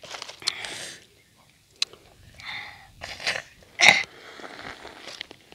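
A person eating a peeled lemon dipped in red chilli paste: a few short bites and breathy mouth sounds, the loudest a sudden one about four seconds in.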